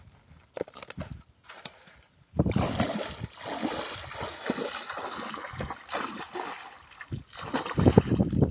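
Water splashing and sloshing, starting a couple of seconds in, with a louder stretch near the end.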